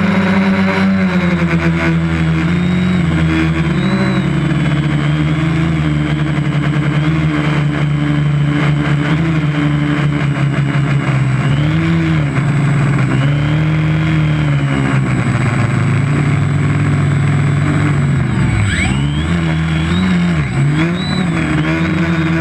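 Quadcopter's electric motors and propellers whining as heard from the camera on board, with a rushing of air over it. The pitch swoops up and down with the throttle, most sharply in the second half.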